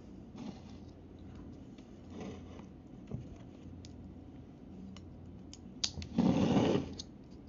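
Scattered light clicks and taps of a metal fork and a plate being handled, then a loud brushing noise lasting under a second near the end as the plate of noodles and boiled eggs is held right up against the phone.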